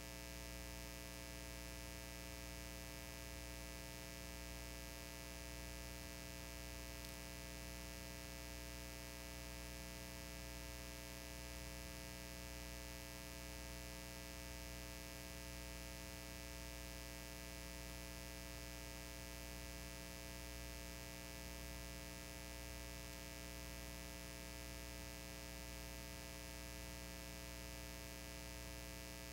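A steady electrical hum with a faint hiss, unchanging, with no other sounds.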